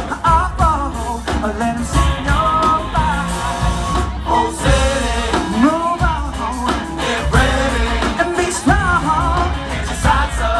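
A live rock band with a horn section playing, a singer's voice over the band and a strong bass.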